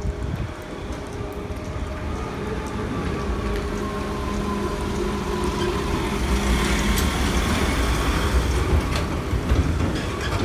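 Small van's engine running as it drives past close by, a low rumble that grows louder through the middle, with a faint whine slowly falling in pitch.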